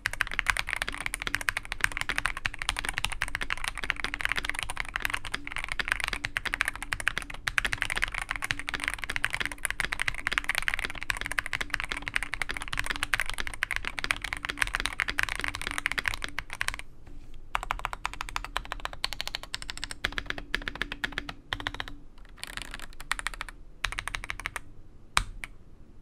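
Rakk Sinag98 mechanical keyboard in a polycarbonate case with Akko ASA Clear keycaps being typed on: rapid continuous keystrokes, thinning to sparser presses with short pauses in the last third.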